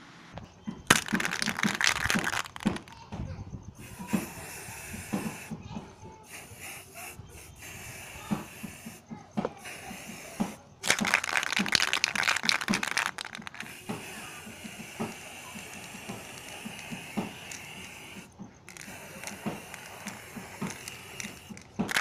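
Aerosol spray-paint can hissing in two bursts of a couple of seconds each, about a second in and again about eleven seconds in, as the plastic box is being painted. Light clicks and knocks from handling come between the bursts.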